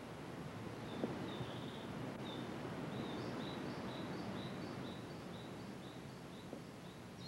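Outdoor ambience: a steady noisy hiss, with a short high chirp that starts about a second in and repeats several times a second.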